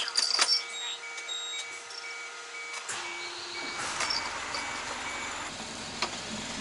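Truck's warning beeper sounding a rapid string of short, evenly spaced beeps on one pitch, which stop about five seconds in. A rushing vehicle noise builds beneath it from about halfway through.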